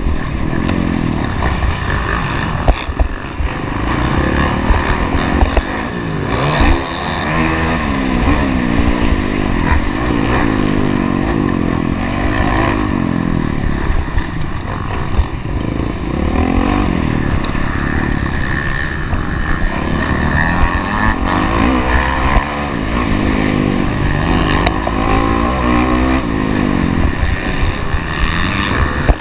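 Motocross bike engine racing, heard close up from on board. It revs up and down again and again, with sharp knocks now and then.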